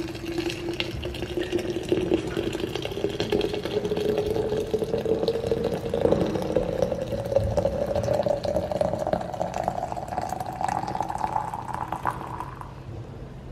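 Coffee poured in a steady stream into an insulated thermos flask. The pitch of the filling rises smoothly as the flask fills, and the pour stops near the end.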